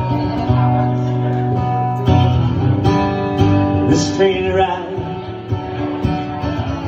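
Acoustic guitar strummed steadily, a live country-folk song.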